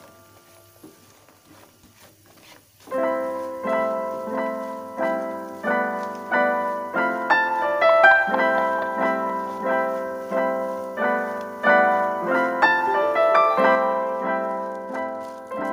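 Background piano music: after about three quieter seconds, a piano comes in with a steady run of struck notes and chords, each ringing and fading before the next.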